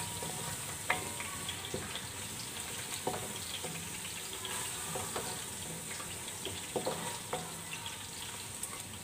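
Onion-tomato masala paste sizzling in oil in a metal pan while a spatula stirs and scrapes it, with irregular scrapes and clicks over a steady frying hiss. The masala is being roasted (bhuna) in the oil.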